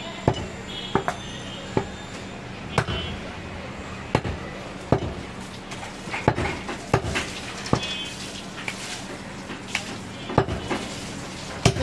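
Heavy cleaver chopping goat meat and bone on a wooden log chopping block: sharp, irregular chops, about one or two a second, over a steady low hum.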